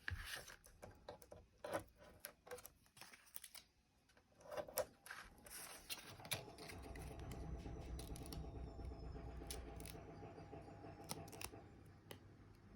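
Washing machine running, a steady hum with a faint rising whine, coming in about six seconds in and easing off near the end. Before it, small clicks and rustles of paper and foam pads being handled.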